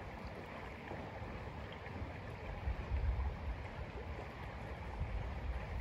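Shallow river running over rocks and logs: a steady rushing of water, with a few low rumbles, the strongest about three seconds in.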